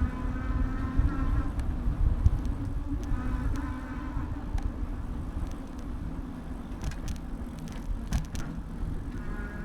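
Bicycle ride heard from a handlebar-mounted camera: a steady low rumble of wind and road, with a buzzing whine that fades in and out, and a few faint clicks and rattles about two thirds of the way in.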